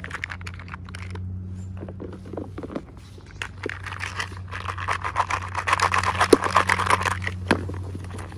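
Plastic packaging being handled and opened by hand: many small clicks and taps, with a dense crinkling from about four seconds in until near the end, over a steady low hum.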